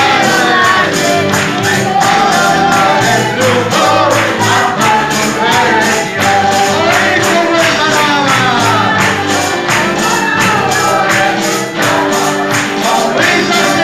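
Congregational worship song: a man leads on a microphone and the congregation sings along over a steady beat.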